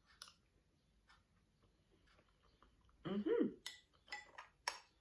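Metal spoon clinking and scraping against a ceramic bowl while eating, with a few sharp clinks in the last two seconds. A short hum from the eater about three seconds in.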